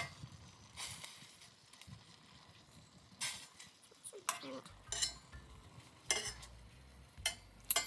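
A metal cooking utensil stirring and scraping in a pan: several short scrapes and clinks at uneven intervals.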